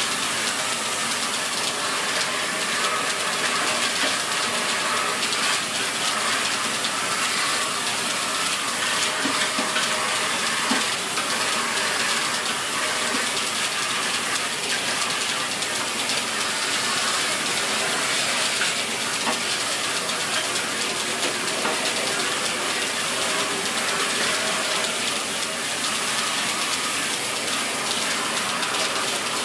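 Dyson Big Ball Animal cylinder vacuum cleaner running steadily, a constant motor hum and rushing suction noise.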